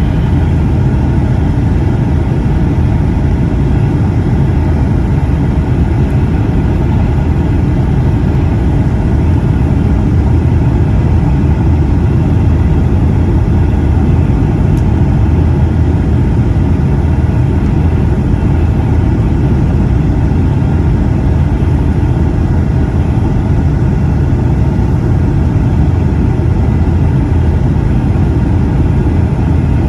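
Steady, loud cabin noise inside a Boeing 757-200 airliner descending to land: an even, deep roar of engines and airflow with faint steady whining tones above it.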